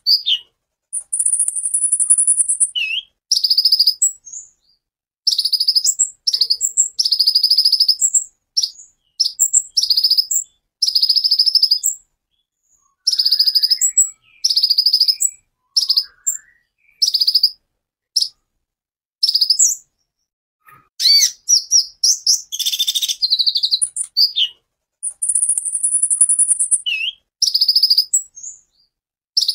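Copper-throated sunbird (kolibri ninja) singing in short, high, rapid trilled phrases of under a second to about two seconds each, separated by brief pauses, with harsh rapid-fire 'tembakan' bursts among them.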